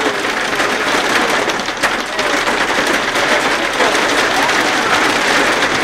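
Hailstones pelting down in a hailstorm: a loud, steady, dense patter of countless small hits.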